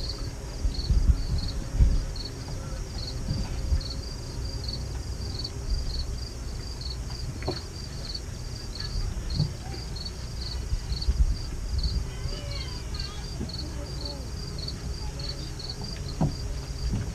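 An insect chirping steadily in a high, even pulse, about two chirps a second, over a low rumble with a few dull thumps near the start.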